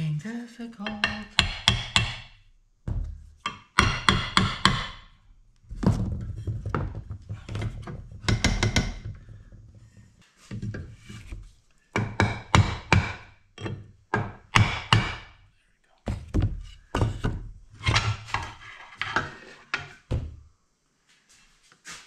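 Hammer blows on a wooden block held against an outboard motor's lower unit, in runs of several quick strikes with short pauses between, driving the gearcase up into place on the driveshaft housing.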